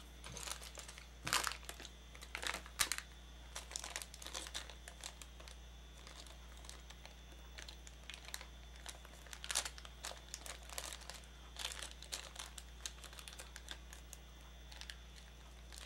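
Irregular crinkling and rustling of a small toy blind-bag pack, its paper instructions and small plastic pieces being handled, with scattered light clicks.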